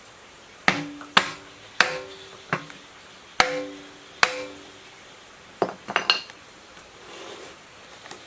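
Six hammer blows on a metal part, each leaving a short pitched ring, then a quick run of lighter metallic clinks about six seconds in.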